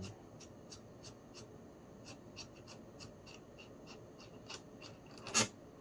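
Sturmey-Archer S3B three-speed hub turned by hand as its cone is threaded onto the axle: a light, even metallic ticking about three times a second, with one louder click near the end.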